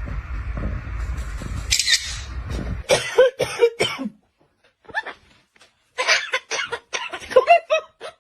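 Pet parrot imitating a person coughing: short cough-like sounds in two runs, after a steady rushing hiss in the first few seconds.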